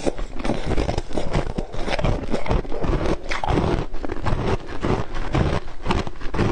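Ice being bitten and crunched close to the microphone, a dense stream of crackling crunches, mixed with a metal spoon scraping in a glass bowl of ice and juice.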